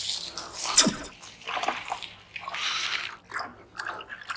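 Water splashing and sloshing in a bucket of live minnows as they are grabbed out by hand, in short irregular bursts.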